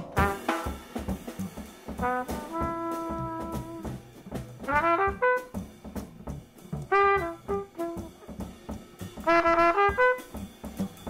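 Cornet playing a jazz solo in short phrases, with one long held note about two seconds in, over a drum kit.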